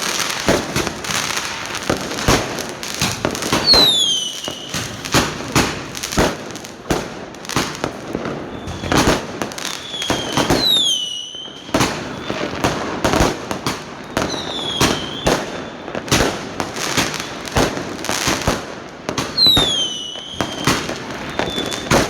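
Fireworks going off in a dense, continuous barrage of bangs and crackles. Four short whistles falling in pitch cut through it, about four seconds in, near the middle, a few seconds later and near the end.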